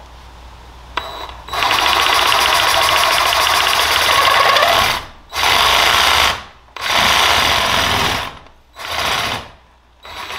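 DeWalt cordless reciprocating saw cutting into the metal shaft of a Humminbird Mega 360 with light pressure. It runs once for about three and a half seconds, then in three shorter bursts with pauses between them.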